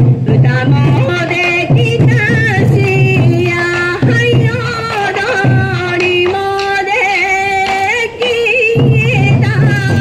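Sansa odori folk music: a wavering singing voice and held melody notes over steady taiko drumming.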